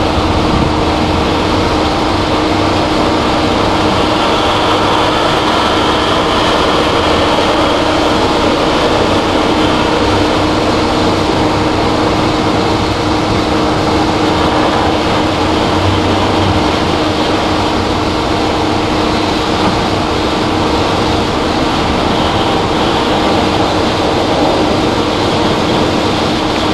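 Heavy machinery running steadily: a low rumble under a constant hum that does not change pitch.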